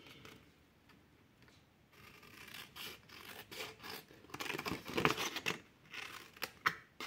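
Small craft scissors cutting through patterned designer paper in a run of short, soft snips. The snips start about two seconds in and are loudest around the middle.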